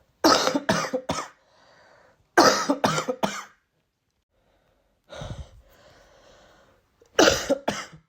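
A person with a cold coughing in short fits of two to four coughs, drawing breath between the fits.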